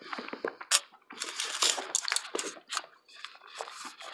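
Close-miked eating: chewing and wet mouth clicks and smacks, with a busier stretch of crackly noise about a second in.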